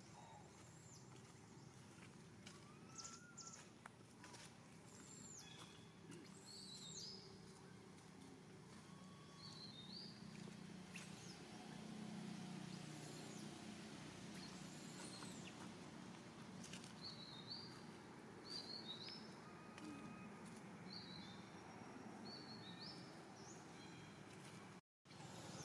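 Faint outdoor ambience with scattered high chirps and short whistled calls of small birds over a low steady hum. The sound drops out completely for a moment near the end.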